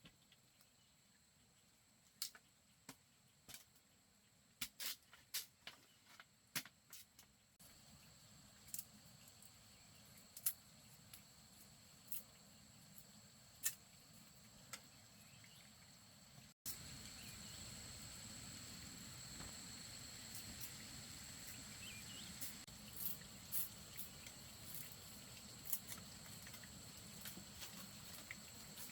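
Faint outdoor ambience: a steady high insect drone with scattered sharp clicks and taps. About two-thirds of the way through, the background noise suddenly gets louder.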